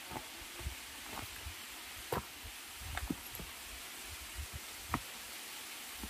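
Footsteps on rock with soft handling bumps: irregular faint thumps and clicks, a sharper one about two seconds in and another near five seconds, over a steady hiss.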